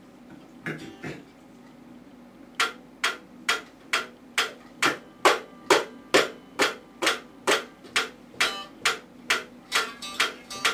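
Clockwork pyramid metronome ticking steadily, a little over two ticks a second, starting a couple of seconds in, after two soft knocks.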